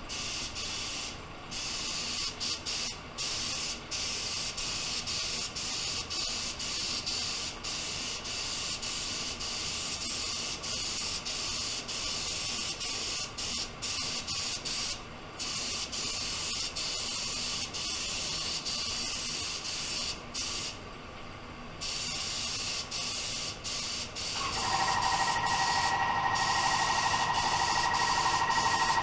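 Compressed-air hiss of a mini gravity-feed paint spray gun spraying black base coat, with several brief breaks as the trigger is released and pulled again. About 24 seconds in, a louder steady whistle joins the hiss.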